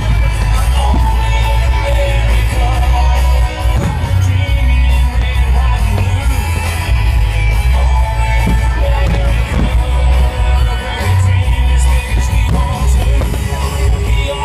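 Loud music with singing over a heavy bass.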